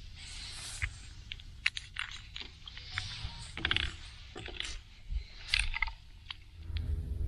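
Scattered small clicks, taps and scratchy rustles of hands handling a fishing jig and a small plastic bottle over a fiberglass boat deck. Near the end, a low steady motor hum starts up, fitting the bow-mounted electric trolling motor.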